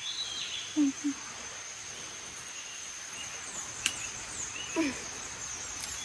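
Outdoor rural ambience: a steady high-pitched insect drone with a few short bird chirps, and a single sharp click about four seconds in.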